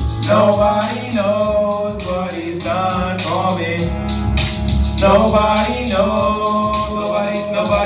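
Gospel hip-hop: a man's voice singing through a handheld microphone over a backing track with a steady beat and bass line.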